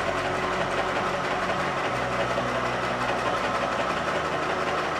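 Chillaxplus 618-series electric sewing machine running steadily at speed while stitching fabric: its motor hum under a fast, even clatter of needle strokes.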